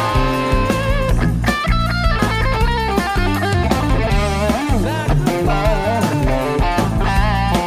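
Folk-rock band playing an instrumental break: an electric lead guitar plays a melody with bent, wavering notes over bass and drums.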